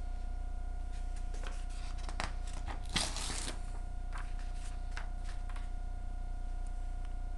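A sheet of paper torn off a notepad, one short rasp about three seconds in, with light paper rustling and small taps of handling before and after it.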